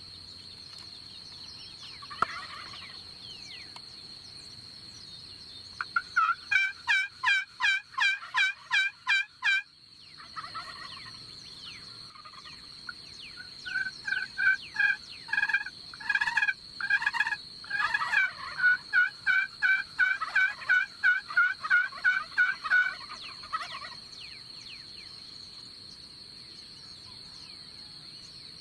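Turkey yelping in two runs of evenly spaced yelps, about three a second: a short run about six seconds in, then a longer one of about ten seconds. A steady high insect hum runs underneath.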